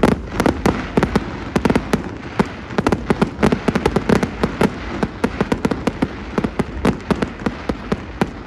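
Fireworks going off in a rapid, continuous string of sharp bangs and crackles, several each second, easing slightly near the end.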